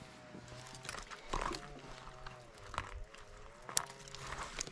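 Dogs howling, a faint, long, wavering howl that runs on without a break. Light clicks and rustles of berry bushes being picked come over it.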